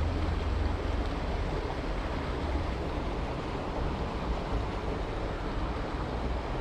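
Wind rumbling on the microphone over the steady rush of a shallow river running over a stony riffle.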